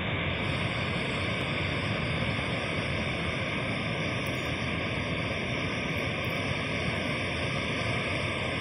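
Steady roar of a large river waterfall: an even rushing noise that does not change.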